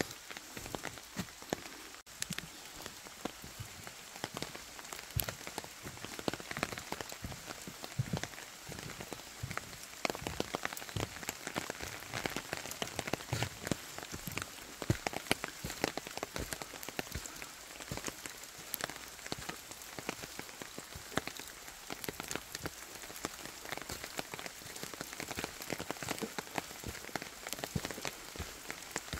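Steady rain falling in a bamboo forest: an even hiss thick with the patter of individual drops striking leaves.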